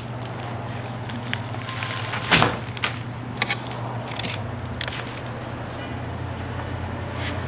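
A paper-wrapped bunch of roses being handled and turned: scattered rustles and soft knocks, the loudest a short noise a little over two seconds in, over a steady low hum.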